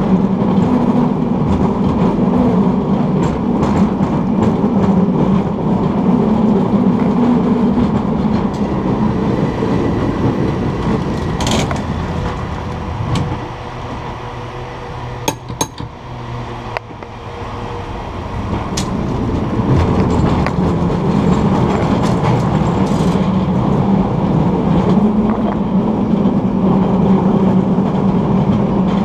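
San Francisco cable car running on its line: a steady rumble and rattle of steel wheels on the rails and the moving cable in the slot. The noise drops away for a few seconds midway, with a few sharp clicks, as the car crosses an intersection.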